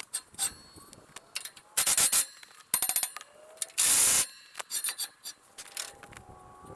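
Wrenches clanking and clinking on the steel scrapers and frame of a disk harrow as the scrapers are adjusted: irregular sharp metallic knocks, each ringing briefly. About four seconds in there is a harsher rasp lasting under half a second.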